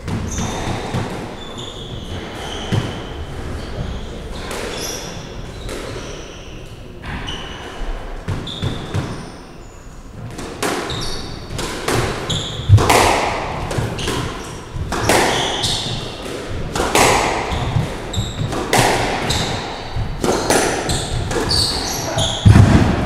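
Squash rally: repeated sharp smacks of the ball off rackets and the court walls, with short high squeaks of shoes on the wooden floor between them. A heavier low thud comes near the end.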